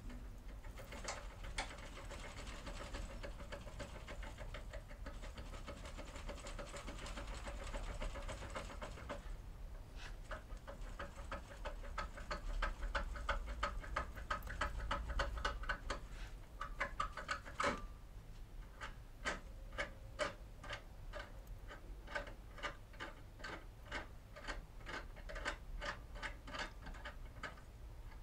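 Foil-covered impression key being worked back and forth inside a Kale 164 CECM lock cylinder, rocking against the pins so they mark the foil. It makes a stream of small metallic clicks and scraping, which turns into a run of regular ticks, about two a second, in the second half.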